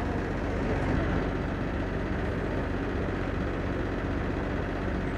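Steady low drone of a large ship's engines running, with a constant deep hum and no change in level.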